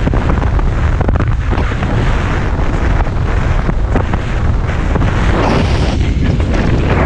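Heavy wind buffeting the microphone over the rush and hiss of water streaming past the hull of a Tornado racing catamaran sailing fast with a hull flying.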